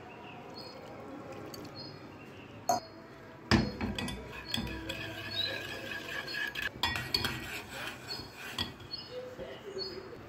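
A metal spoon clinks and scrapes against a metal pan while stirring a cocoa and sugar mixture. The clinking starts about a third of the way in and thins out near the end.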